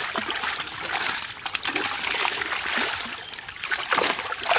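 A mass of netted live fish thrashing in shallow water: a dense, continuous, irregular splashing and slapping.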